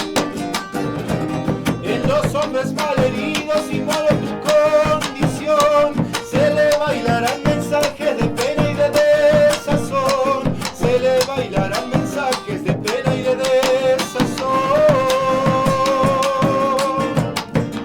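Live Argentine folk music: fast-strummed acoustic guitar with a steady beat, under a melody line that holds long notes, most clearly near the end.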